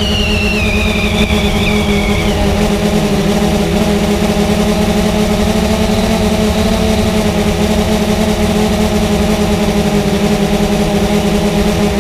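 Multirotor drone's motors and propellers buzzing steadily, with a higher whine that falls in pitch and fades out during the first two seconds.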